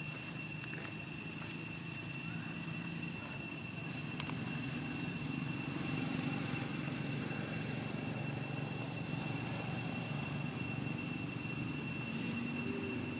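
Steady low drone of a distant engine, swelling a little in the middle, with a constant thin high-pitched whine over it.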